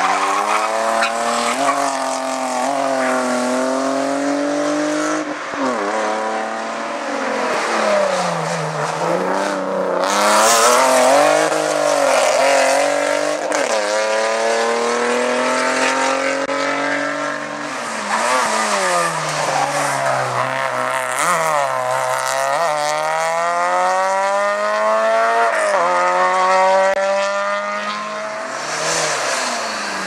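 Hillclimb race cars accelerating hard up a twisting mountain road. Engine pitch climbs steeply through each gear and drops sharply at each upshift, many times over, as one car passes and the next arrives. Tyres squeal at times in the hairpins.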